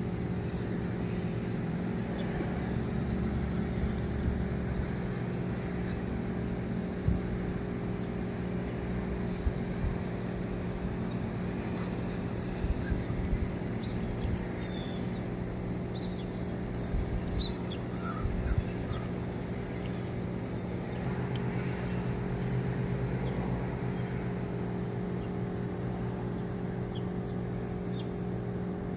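Steady high-pitched drone of a chorus of outdoor insects, with a steady low hum beneath it and a few short ticks scattered through.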